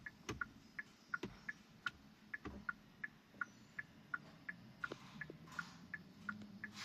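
Turn-signal tick-tock played through the 2015 Hyundai Azera's small chime speaker: short, even clicks alternating between two pitches, about three a second. The sound is back because the failed speaker has been replaced with a new one.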